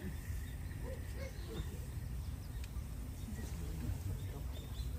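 Outdoor ambience: a steady low rumble, faint distant voices and a few short high bird chirps.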